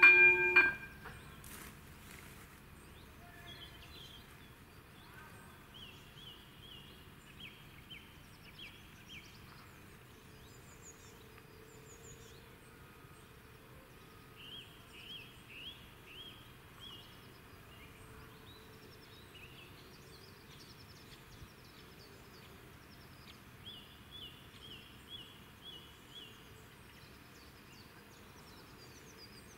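Level-crossing electronic warning bell ringing its pulsing tone for under a second, then cutting off, with a single click just after. Then a quiet rural background with birds singing in three short bursts of rapid chirps.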